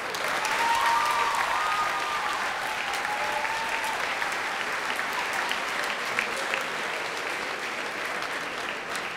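Audience applauding in a large hall, many hands clapping at once, with a few voices audible over it in the first few seconds. The clapping thins a little toward the end.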